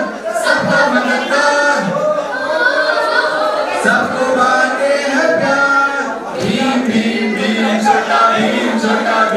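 Several voices singing a melody together, choir-like, with little to no instrumental accompaniment.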